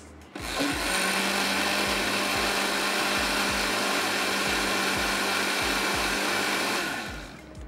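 Electric blender running steadily for about six and a half seconds, mixing flour into batter, with a constant motor hum under the whir; it starts just after the beginning and winds down near the end.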